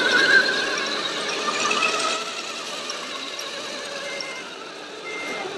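Radio-controlled Mercedes-Benz truck with tipper trailer driving, its drivetrain giving a wavering mechanical whine that fades as it moves off.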